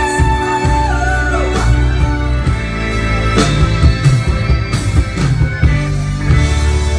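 Loud recorded rock-style song over a nightclub sound system. A long held note slides down about a second and a half in, then the music carries on with sharp beats.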